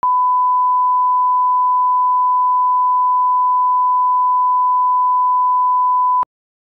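Broadcast line-up test tone: a steady 1 kHz sine tone, the reference tone that goes with colour bars for setting audio levels. It cuts off suddenly about six seconds in.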